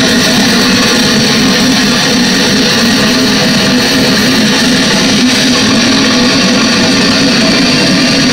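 A live metal band playing loud, with electric guitars and drums in a dense, unbroken wall of sound, heard from the crowd.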